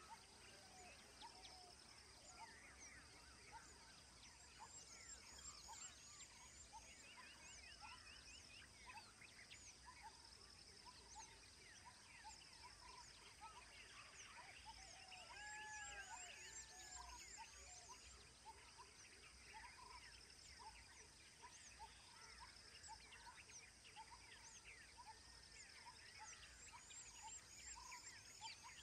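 Faint, busy chorus of many wild birds chirping, whistling and trilling, over a steady high-pitched hiss.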